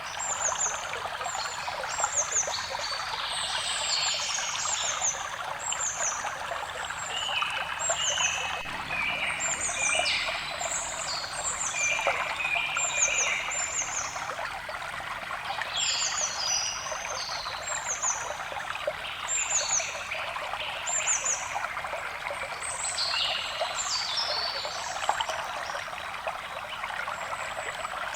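A small stream trickling and splashing steadily, with forest songbirds calling over it in many short, high, falling chirps repeated throughout.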